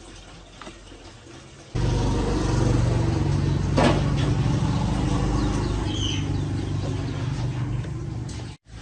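A motor-driven machine running steadily, starting abruptly about two seconds in and cutting off sharply near the end.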